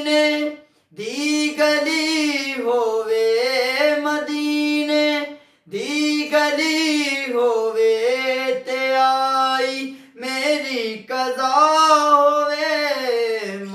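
A man singing a naat unaccompanied: long melismatic phrases with held, sliding notes, broken by short breaths about a second in, near the middle and about two-thirds through.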